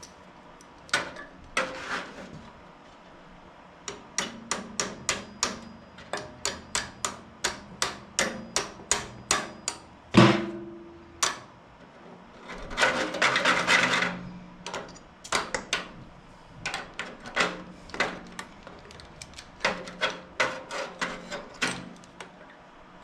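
Hammer tapping on metal in runs of light, quick blows, about three a second. One hard blow about ten seconds in rings briefly, and a couple of seconds of scraping follow it.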